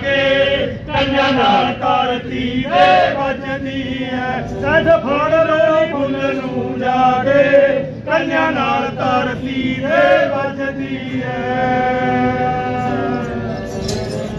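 A man's voice in a long, chant-like folk recitation, drawing out and sliding between notes, over a bowed string instrument holding steady notes beneath. Drum strikes come in right at the end.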